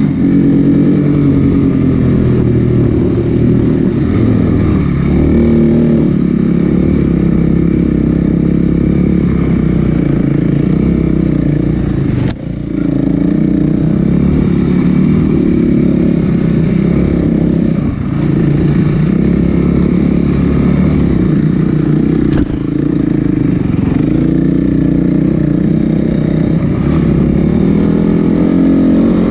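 Snowbike engine running under load, its pitch rising and falling with the throttle, and briefly cut back about twelve seconds in.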